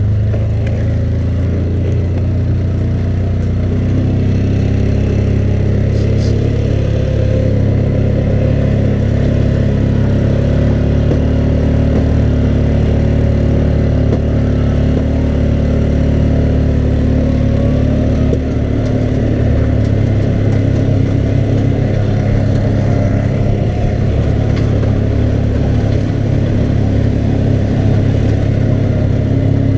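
ATV engine running steadily at low speed while riding, with small rises and falls in pitch.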